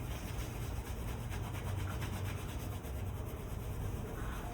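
Faint, repeated scraping as a small screwdriver tip works dried, hardened thermal paste off a graphics card's circuit board.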